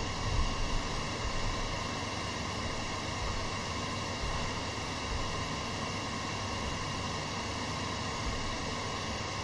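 Steady hiss from an idle microphone and audio line, with a few low thumps in the first second and a half.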